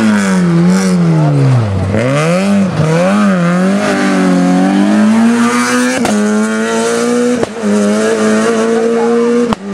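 Rally car engine revving hard up and down through gear changes, its pitch dropping low about two seconds in, then pulling away with a steady, slowly climbing note. The sound breaks off abruptly three times in the second half.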